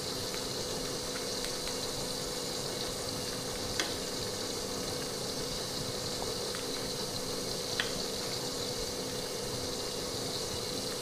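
A wok of cassava-leaf soup simmering, a steady bubbling hiss, as it is ladled into a bowl. There are two light clinks of the ladle, about four and about eight seconds in.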